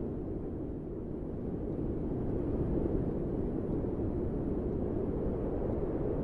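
Steady low rumbling noise of a slow a'a lava flow on Mount Etna creeping over loose clinker, with little high-pitched crackle.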